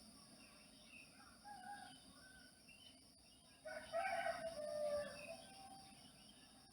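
A rooster crowing once, a single long call starting just before the four-second mark and lasting about a second and a half, with fainter short bird calls before it.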